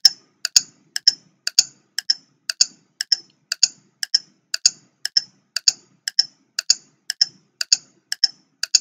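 Clock-ticking sound effect of a quiz countdown timer, evenly spaced sharp ticks at about two a second.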